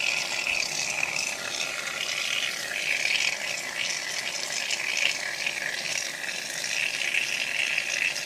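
Aerosol can of shaving foam spraying in one long, steady hiss.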